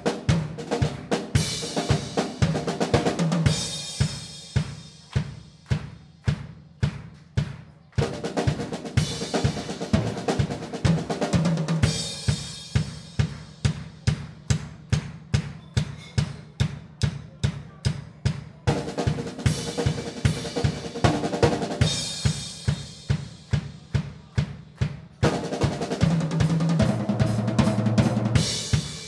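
Drum kit played hard: a steady pulse of drum strikes broken every few seconds by busy fills with cymbal crashes. Near the end there is a low tom fill.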